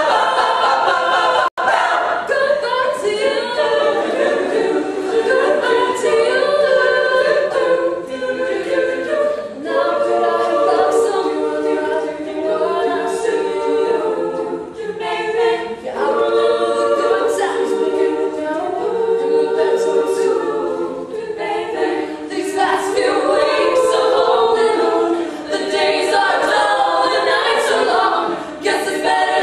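All-female a cappella group singing in close harmony, voices only, with no instruments. The sound cuts out for a split second about a second and a half in.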